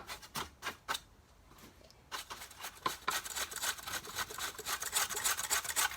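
Plastic vacuum parts being handled: scattered clicks, then from about two seconds in a quick run of scraping and rubbing.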